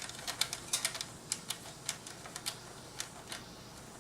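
Light, irregular clicking, a few clicks a second, as the CPU cooler's mounting nuts are hand-tightened with a small socket tool, metal clicking on metal.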